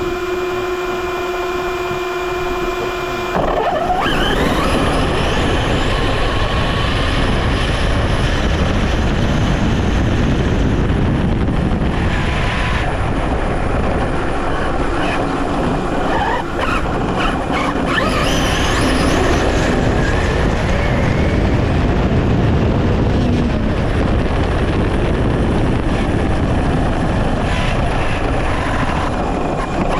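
Kraton 12S RC truck heard from a camera mounted on it: first a steady whine, then from about three seconds in a loud rush of wind and rumble as it drives off at speed. A rising motor whine comes as it accelerates, again around the middle.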